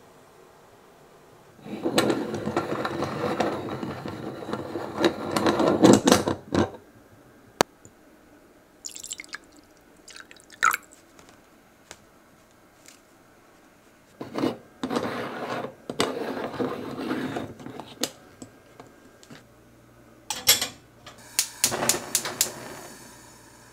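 Mouthwash swished around the mouth, a loud liquid sloshing for several seconds. Later come rustling and pouring as ground coffee goes into a moka pot, and near the end a gas stove burner clicks several times and catches.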